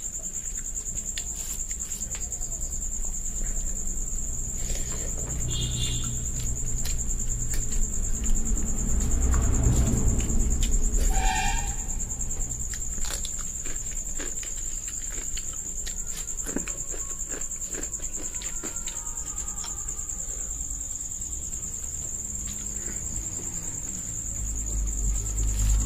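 Eating sounds close to the microphone: chewing with the mouth, and fingers mixing rice and curry on a plate, with scattered small clicks, loudest in the middle. Under them runs the unbroken high-pitched chirring of crickets.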